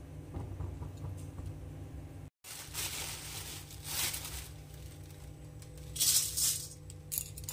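Dry flattened rice (chira) poured into a hot, empty metal wok: a rattling patter of flakes on metal about six seconds in, with a shorter patter just after. Under it is the low steady rumble of the lit gas burner.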